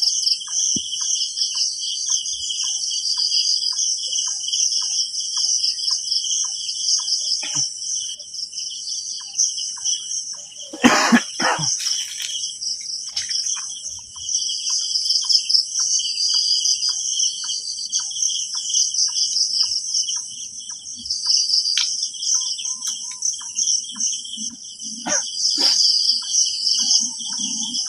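Night insect chorus: crickets trilling steadily and high, over a faint regular ticking about twice a second. About eleven seconds in comes one loud, short burst of noise.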